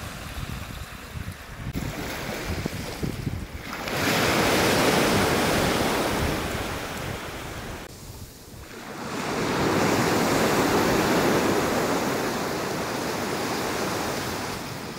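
Sea surf breaking on the shore in long surges, one building about four seconds in and easing off, another from about nine and a half seconds on. Wind buffets the microphone in the first few seconds.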